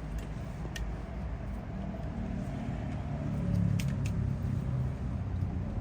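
Low steady rumble that swells a little about halfway through, with a few short sharp clicks of hand work on the engine.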